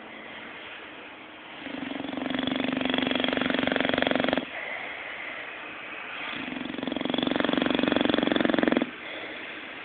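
Bulldog snoring: two long, buzzing snores, each about two and a half seconds, swelling in loudness and cutting off abruptly, with softer breathing between them.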